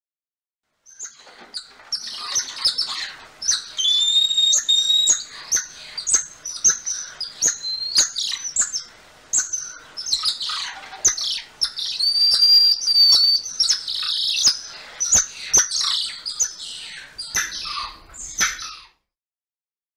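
Bird chirping and whistling: a busy chatter of short high calls and clicks, broken by a few longer steady whistles, starting about a second in and stopping shortly before the end.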